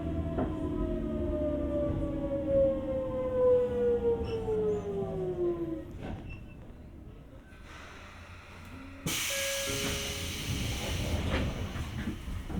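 Hitachi GTO-VVVF inverter of a Sotetsu 8000 series train whining in a stack of falling tones as the train brakes to a stop, heard from inside the car; the whine fades out about six seconds in. About nine seconds in, a sudden loud hiss of compressed air lasts a couple of seconds.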